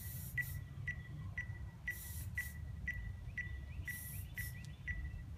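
Outdoor ambience: a faint high chirp repeating evenly about twice a second, with a pair of short hissing bursts every two seconds over a low rumble.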